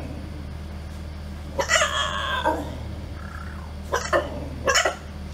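A dog barking in an odd, pig-like way: a drawn-out, slightly falling squealing call about a second and a half in, then two short barks near the end.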